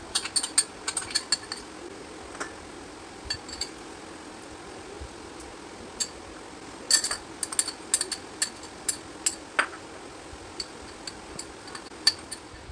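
Small glass bowls clinking and tapping against a stainless steel mixing bowl as spices and cornflour are tipped out: sharp, ringing taps in quick clusters, busiest at the start and again about seven to nine seconds in.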